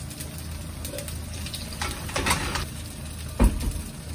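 Kitchen handling noises over a steady low hum: a short scraping rustle about two seconds in, then a single dull thump near the end.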